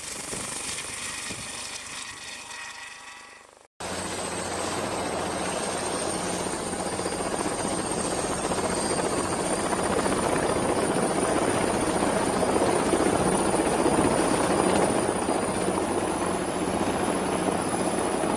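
Aircraft sound fading away, cut off suddenly about four seconds in. It is followed by a helicopter running steadily: a dense rotor-and-engine rumble with a thin high whine that creeps slowly higher as it grows a little louder.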